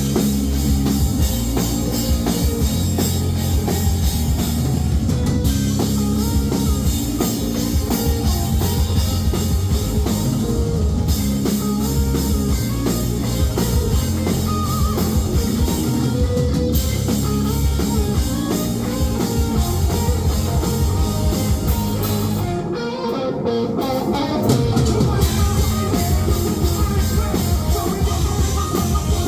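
Live rock band playing an instrumental passage: electric guitar, bass and drum kit. The bass and drums drop out for about a second roughly 23 seconds in, then the full band comes back in.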